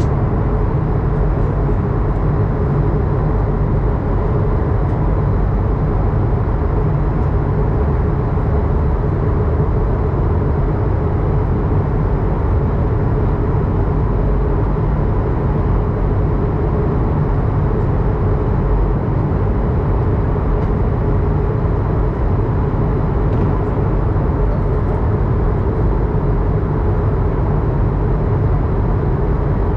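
Steady cabin noise inside an Airbus A220-100 airliner: a constant low rumble with a steady hum.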